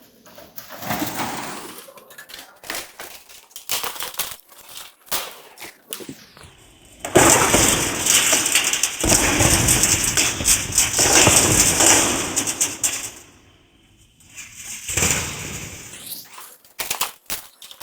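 Electric arc welding: a dense, steady crackle of the arc that lasts about six seconds in the middle, with scattered knocks and short bursts before and after.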